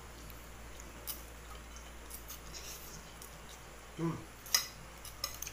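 Metal forks and spoons clicking against plates as people eat noodles: a few sharp clicks, the loudest about four and a half seconds in, with a short low voice-like sound just before it, over a steady low hum.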